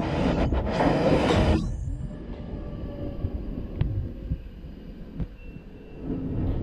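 London Underground Northern line 1995 Stock train arriving at a platform: a loud rushing rumble that drops off abruptly about a second and a half in, then a quieter low rumble with faint whining tones as the cars run slowly past, rising loud again near the end.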